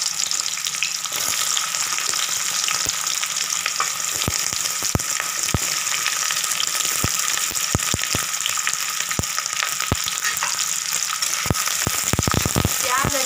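Cut onions frying in hot oil in a metal kadhai: a steady sizzle with scattered crackles. Near the end a spoon knocks and scrapes against the pan as the onions are stirred.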